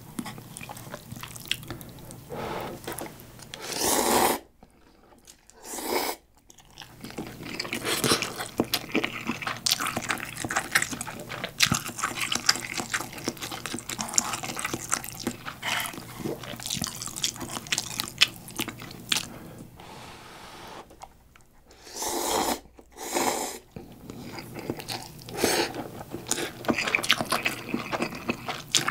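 Instant cup ramen noodles eaten with chopsticks into a close microphone: several long slurps of noodles, about four seconds in, at six seconds and again after twenty seconds, with wet chewing clicks in between.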